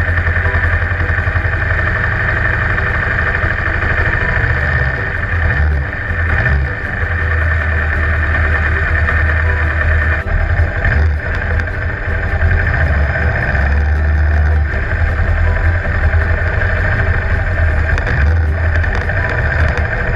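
Classic motorcycle engines idling and running at low speed close by: a loud, steady rumble that swells and eases as bikes move.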